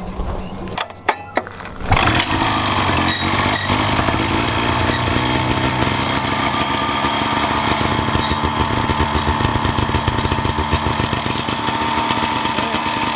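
Go-kart engine started with its push button after a few clicks, catching about two seconds in and then running steadily.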